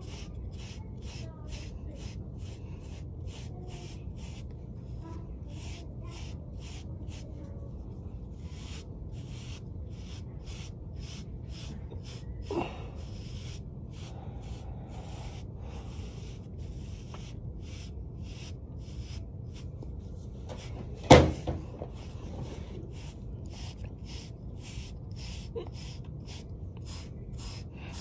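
Wooden-backed bristle brush stroked through short hair and beard stubble: short, even scratchy strokes at about three a second, with a brief pause partway. A single loud knock about 21 seconds in.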